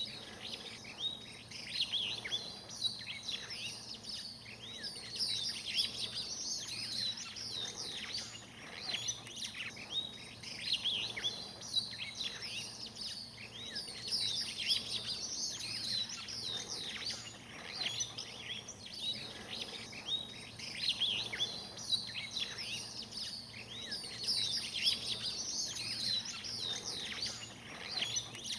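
A dense chorus of many birds chirping and calling at once, quick high-pitched notes and sweeping whistles overlapping without a break.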